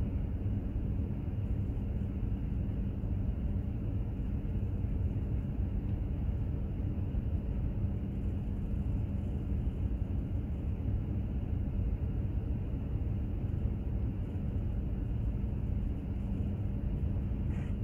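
Steady low rumble of a container ship under way, with a faint steady hum from its machinery and the wash of wind and sea mixed in.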